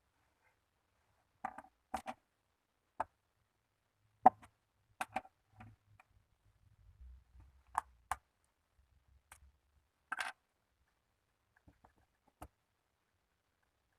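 Slime being worked by hand, giving scattered sharp clicks and pops with quiet gaps between them.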